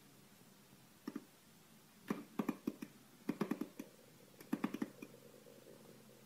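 Kitten batting a plastic cordless phone handset on a wooden floor: clusters of light plastic clicks and taps, in four short bursts.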